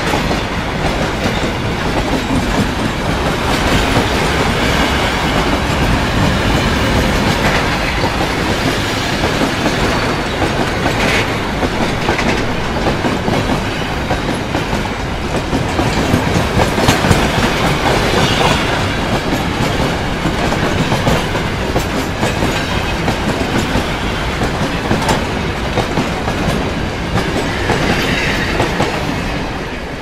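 Train passing at moderate speed: a steady loud rumble of wheels on rails with the clack of wheels over rail joints, fading away near the end.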